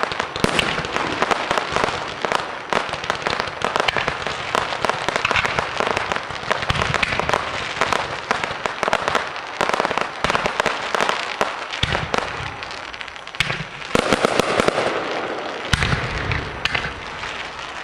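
A fireworks barrage firing in quick succession: a dense run of bangs and crackling, with a few heavier booms in the second half, thinning out near the end.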